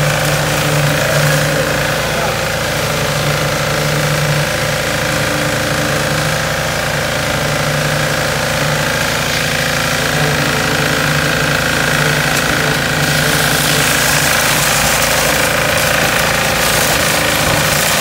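Concrete-pouring machinery running steadily on a slab pour: a continuous engine drone with a low hum that comes and goes.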